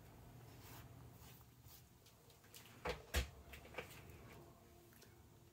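A metal ladle knocking twice, sharply and close together, against a stainless steel soup pot as it is set in, followed by a few lighter clinks.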